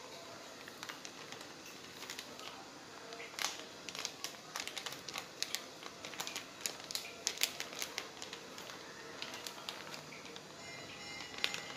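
Thin plastic sheet crinkling and crackling as it is folded and pressed by hand over soft rice-flour dough, in irregular clusters of small crackles, densest in the middle stretch.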